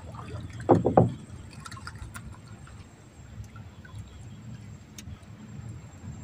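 Water lapping quietly against the hull of a small river boat, with two loud thumps close together about a second in.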